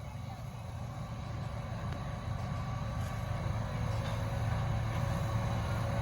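Train rumbling as it approaches, a low steady rumble growing gradually louder: locomotive No. 19 pulling three coaches.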